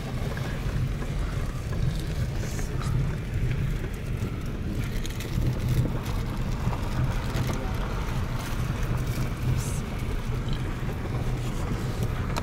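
Steady low rumble of a Toyota sedan rolling along the road, heard inside the cabin: tyre and road noise with the car coasting in neutral.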